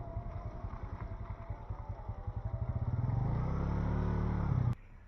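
A vehicle engine running with a pulsing beat, speeding up and getting louder about halfway through, then holding steady. The sound cuts off suddenly near the end.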